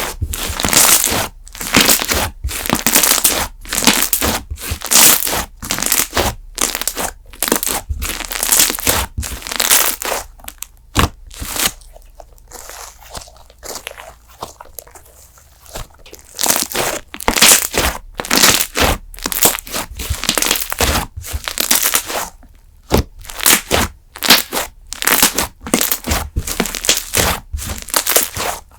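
Handmade slime being squeezed and pressed by hand: runs of crackly clicks and pops, quieter for a few seconds around the middle.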